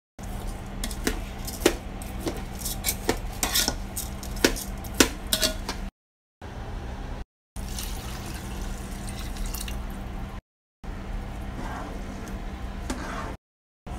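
A metal spoon stirring rice, beans and liquid in a rice cooker pot. It scrapes and knocks against the pot, with many sharp clicks over the first six seconds, then quieter stirring, all under a steady low hum. The sound breaks off in three brief silent gaps.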